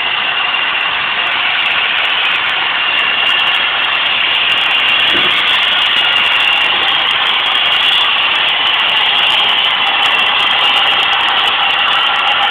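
Steam locomotive No. 186 standing with steam hissing from it, a loud, steady hiss.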